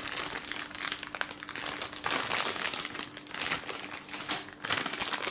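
Clear plastic bags crinkling as hands handle and shift bagged plastic model-kit runners, an uneven crackle that comes and goes.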